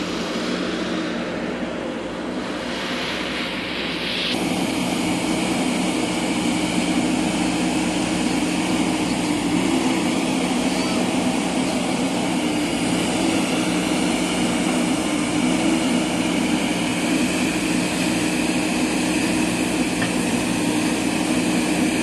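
JCB backhoe loader's diesel engine running steadily at working revs, a constant drone that gets louder about four seconds in.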